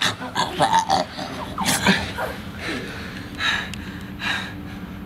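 A man's strained vocal sounds: short grunts and gasps, then two heavy breaths about three and a half and four seconds in.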